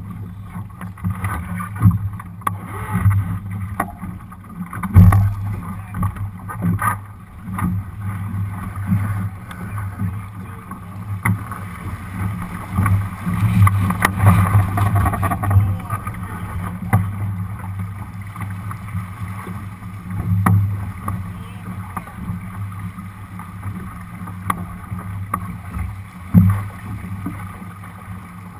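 Water rushing and slapping along the hull of a Lightning sailing dinghy, picked up by a deck-mounted action camera, with scattered knocks and thumps from crew and fittings. The loudest thump comes about five seconds in and another near the end. A louder stretch of noise comes in the middle, while the boat tacks.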